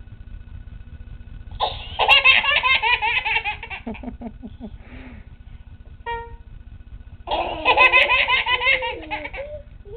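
Toddlers laughing hard in two loud bursts of about two seconds each. Between the bursts comes a single short electronic keyboard note.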